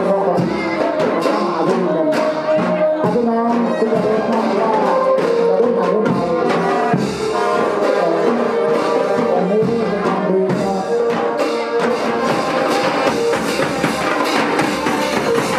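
Brass band music with drums.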